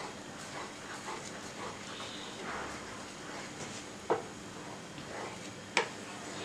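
A wooden spatula stirring a thick milk and cornflour pudding in a nonstick pan: soft scrapes through the mixture, with two sharp knocks of the spatula against the pan, about four seconds in and again near six seconds.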